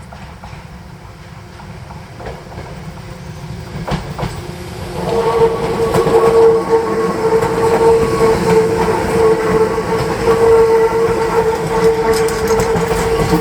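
Hakone Tozan Railway 2000 and 3000 series electric train approaching and passing close. It grows louder over the first five seconds, then runs loud with a steady ringing tone over the rumble and clicks of the wheels on the rails.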